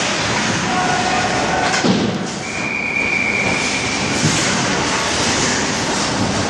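Loud, steady noise of an ice hockey rink during play, with one held, whistle-like tone about two and a half seconds in that lasts under two seconds.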